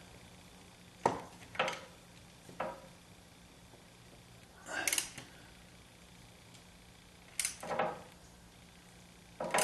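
Hand ratchet on a long extension snugging a bolt into an aluminum transmission case: a handful of separate short clicks and metal clinks, with a slightly longer ratcheting burst near the middle.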